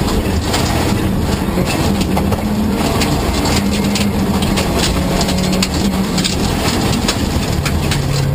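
Rally car engine running hard, heard from inside the cabin, its revs rising and falling with gear changes and dropping near the end. Gravel rushes and clatters against the underbody throughout.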